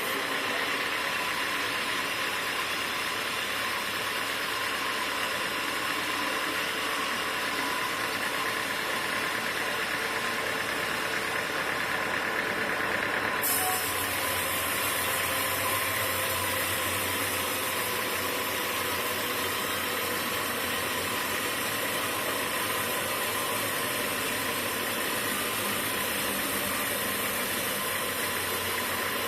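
Sawmill machinery running steadily with a dense mechanical din. About 13 seconds in, the higher hiss gets suddenly louder and then holds steady.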